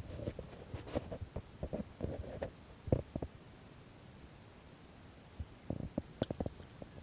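Small ripples lapping at the pebbly edge of a calm lake, making irregular soft gurgles and plops. They come in clusters, with a quieter stretch in the middle.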